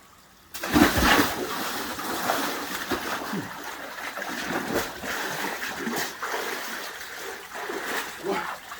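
A person plunging into cold water for a short immersion: a big splash about half a second in, then water sloshing and splashing for several seconds.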